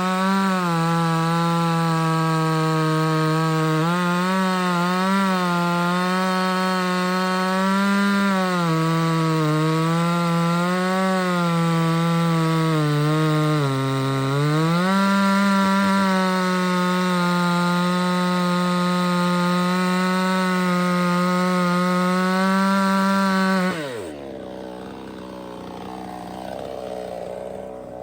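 58cc two-stroke Chinese chainsaw cutting through red oak at full throttle. The engine note wavers and sags under load, dipping hardest about 14 s in. About 24 s in, the throttle is released and the engine winds down quickly to a quieter idle.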